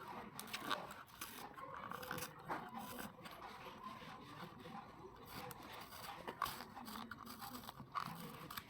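Faint scraping, rustling and small clicks of craft items and their packaging being handled during unboxing.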